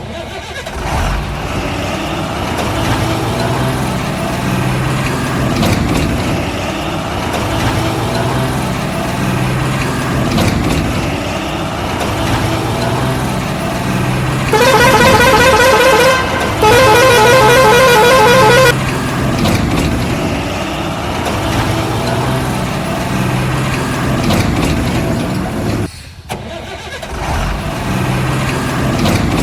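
Heavy truck engine running steadily, with two loud warbling horn blasts a little past halfway, the second slightly longer.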